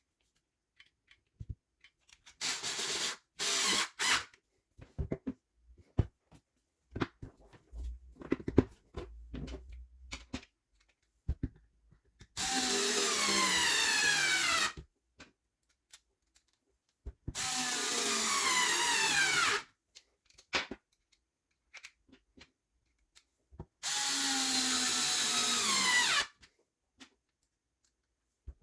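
Power screwdriver driving screws back into the sander housing: three motor runs of about two and a half seconds each, the pitch falling during each run, with shorter spurts and handling clicks before them.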